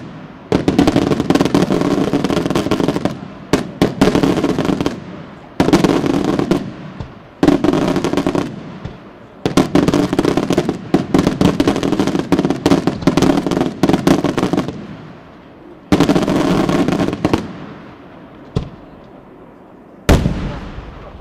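Daytime aerial fireworks: shells bursting into strings of rapid crackling bangs that come in waves of a few seconds each, with short lulls between. About 20 seconds in there is one single loud bang.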